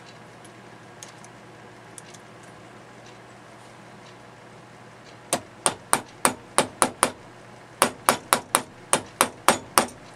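Hammer striking a steel punch on thin stainless steel sheet backed by a vise used as an anvil: a quick run of sharp metallic taps, about three to four a second, starting about halfway through with a short pause in the middle. The punch is being driven through the stainless to make a hole.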